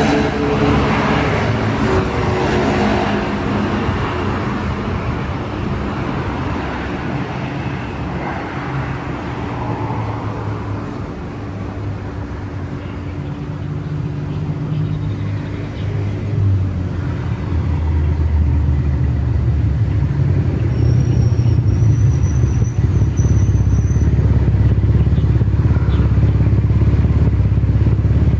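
A low, steady engine rumble, like a motor vehicle running nearby, growing louder about two-thirds of the way through, with a thin high tone briefly near the three-quarter mark.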